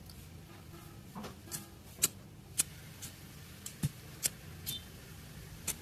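About eight sharp, short clicks and taps at uneven intervals, the loudest about two seconds in. They come from a small metal tool being handled against a smartphone during screen-protector fitting.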